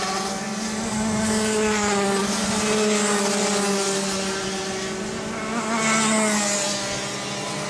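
Several Rotax Junior racing karts' single-cylinder 125 cc two-stroke engines running past in a group, more than one pitch at once. The pitch sags as they take the corners and climbs again as they accelerate out, the sound swelling as karts come close about one, three and six seconds in.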